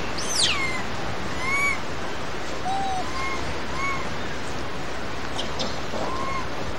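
Short, arched whistle-like animal calls repeated every second or so, one near the start sweeping sharply down from high pitch, over a steady outdoor hiss.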